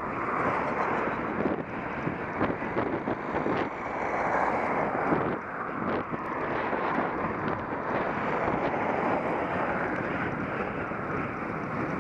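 Steady wind rumble buffeting the microphone of a camera moving along a road, with a few short knocks scattered through it.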